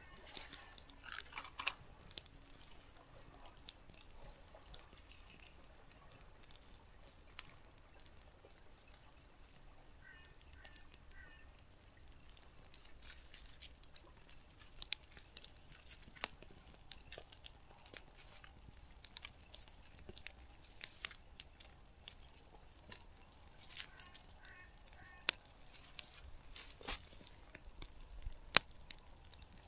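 A small kindling fire of dry twigs being lit and fed by hand: faint, scattered sharp clicks, snaps and crackles of small sticks.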